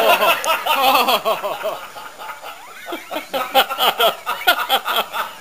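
People laughing and chuckling, with a quick run of short laughs in the second half.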